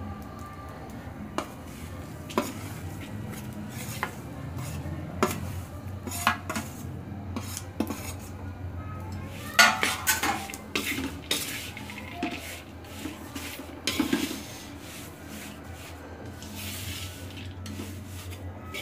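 Perforated steel spatula scraping and clinking against a metal kadai, stirring dry roasted moong dal flour into nuts fried in ghee. The scrapes and knocks come irregularly, with a louder clatter about ten seconds in.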